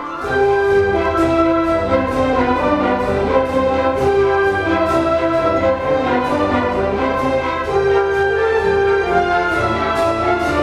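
An orchestra playing classical music, brass to the fore, with a steady beat.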